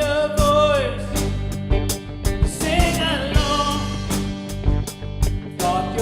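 A worship song played by a band with steady drum hits, and a voice singing long, sliding notes without clear words.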